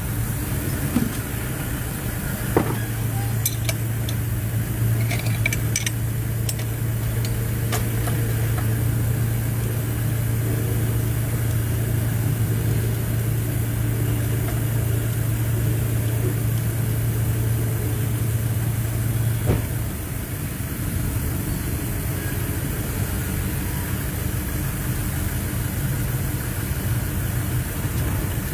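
A steady low mechanical hum that starts about two and a half seconds in and cuts off suddenly around twenty seconds, over a constant background drone. A few light sharp clicks come between about three and eight seconds.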